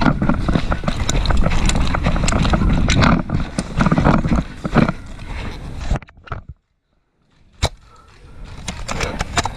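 A player on the move: dense rustling and knocking with many sharp clicks, typical of running steps and gear rattling against a worn camera. About six seconds in it drops out to silence. One sharp click follows, then the rustling builds back up.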